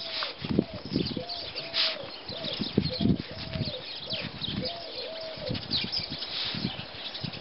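A wire-haired fox terrier digging and scrabbling in snow, with scattered crunches and thuds. Over it runs a regular series of short rising-and-falling tones, about two a second, that stops about five and a half seconds in.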